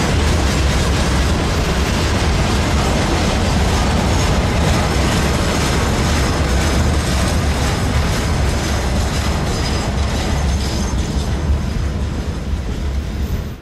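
Freight train's wagons rolling past on the rails, a loud steady noise of wheels on track. It eases slightly near the end, then cuts off suddenly.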